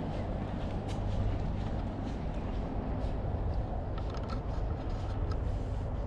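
Steady low rumble of outdoor background noise, with a few faint light ticks scattered through it.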